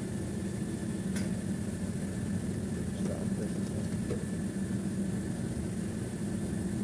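A 20-horsepower split air conditioner's outdoor unit, its newly replaced compressor running, gives a steady low hum with a constant hiss above it. A few faint clicks come through about a second in and again around three to four seconds in.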